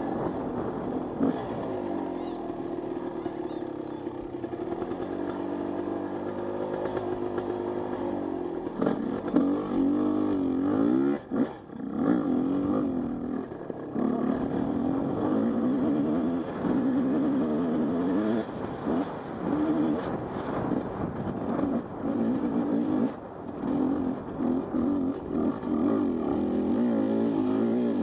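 Husqvarna 250 two-stroke dirt bike engine revving up and down under the rider's throttle. The throttle closes briefly about 11 seconds in and several more times in the second half.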